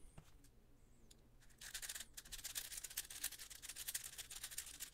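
MGC 6x6 magnetic speedcube being turned rapidly after fresh lubrication: a dense, fast run of small plastic clicks and scraping that starts about one and a half seconds in, as the layers are worked to spread the lube.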